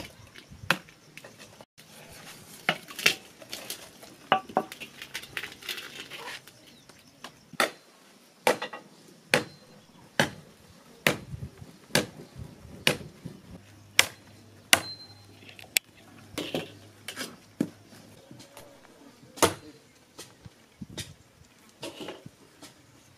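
Meat being chopped with a blade on a wooden log: sharp knocks about once a second, with a busier patch of knocks and clatter in the first few seconds.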